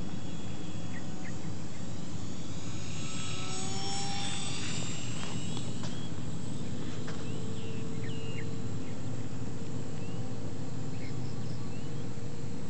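Electric RC foam airplane in flight, its brushless motor and propeller buzzing, louder and higher around three to five seconds in as it passes close, over a steady low rumble.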